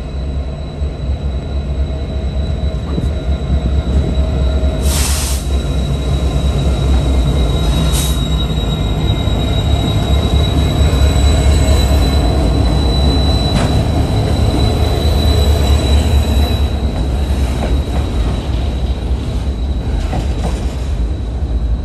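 Two EMD GP60 diesel-electric locomotives, each with a 16-cylinder two-stroke engine, rumbling slowly past close by, then a covered hopper car rolling behind them. A steady high-pitched wheel squeal rides over the engine rumble, strongest in the middle, with two short bursts of hiss about 5 and 8 seconds in.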